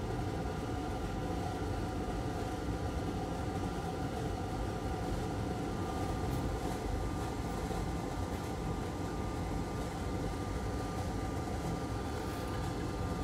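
Soldering fume extractor fan running steadily, an even whir with a faint steady tone in it.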